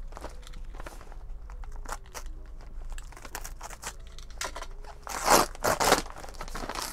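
Brown paper parcel wrapping crinkling and crackling as a utility knife slits it open, then loud ripping as the paper is torn apart by hand near the end.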